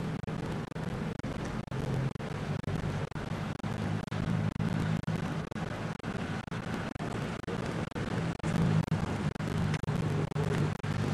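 Damaged camcorder tape audio: a steady low hum broken all through by frequent crackles and brief dropouts.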